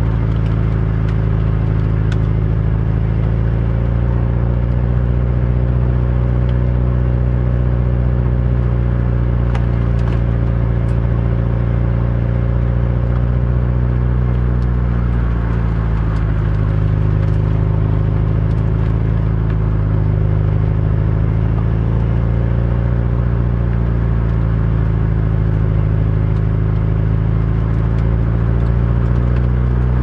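Subaru WRX STI's turbocharged 2.0-litre flat-four engine running steadily at low revs as the car drives slowly, heard from inside the cabin with road noise, its note shifting slightly about halfway through. A few light clicks.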